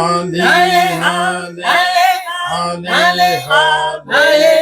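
Worship singing: voices singing "hallelujah" in short phrases over a steady, low held note.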